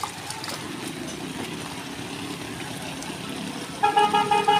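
Small engines of an auto-rickshaw and a motorcycle running as they drive through floodwater. Near the end a vehicle horn sounds in a rapid string of short beeps, louder than the engines.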